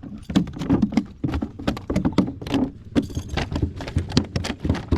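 A landed fish flopping and thrashing against the plastic hull of a kayak: a rapid, irregular run of knocks and thumps, a bunch of noise.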